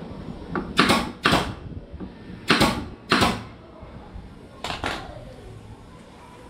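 Pneumatic nail gun firing nails into wooden boards: four sharp shots in two pairs, then two fainter ones in quick succession about five seconds in.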